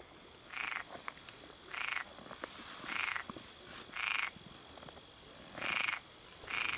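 A frog croaking repeatedly: six short calls at a steady pace, about one a second.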